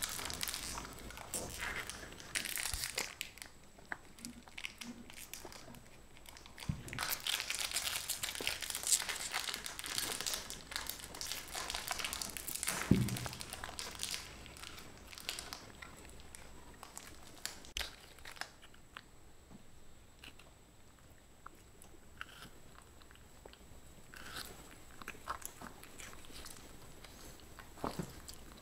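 A baby monkey biting and chewing hard candy, a close, crackly crunching that is densest in the first half and thins to scattered crunches later, mixed with the crinkle of plastic candy wrappers.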